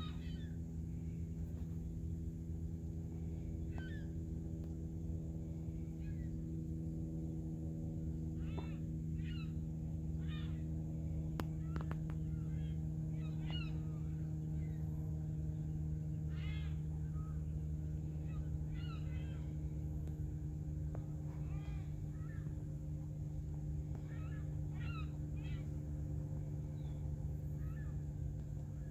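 Short bird calls, repeated every second or two, from waterbirds on a lake, over a steady low hum.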